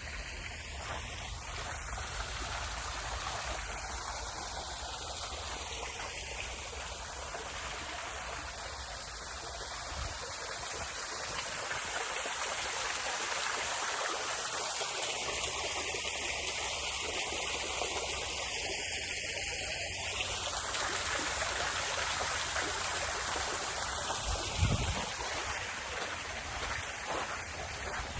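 Steady rushing noise of running water, like a stream, continuing without a break.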